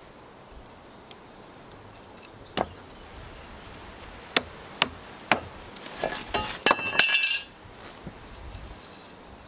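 Sharp wooden knocks from pallet-wood battens being fitted and tapped together into notched joints: a single knock, then three spaced knocks, then a quick clatter of several knocks about six to seven seconds in.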